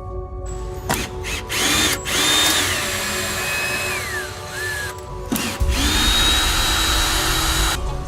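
A power tool's motor whining in two runs: each time the pitch rises quickly, holds, then drops away as it is released. Faint background music plays underneath.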